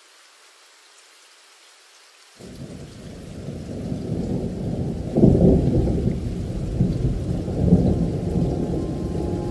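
Thunderstorm: faint rain hiss, then about two and a half seconds in a low thunder rumble sets in suddenly and swells, with two louder peaks around the middle and later on.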